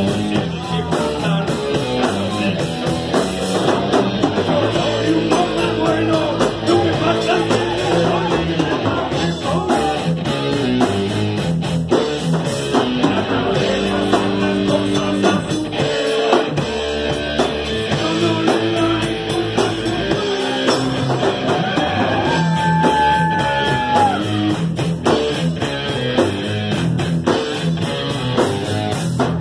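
Live rock band playing: electric guitars and a drum kit with a singer's vocals, loud and unbroken. About 22 seconds in, a single note slides up and is held for about two seconds.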